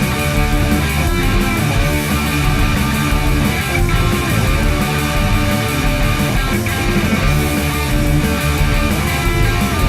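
Hard rock band playing an instrumental passage led by electric guitar, with some notes bending in pitch.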